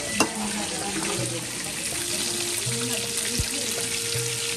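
Food sizzling in a hot pan with a steady hiss as it is stirred with a metal spatula, with one sharp metal clink just after the start. Soft background music with low held notes plays underneath.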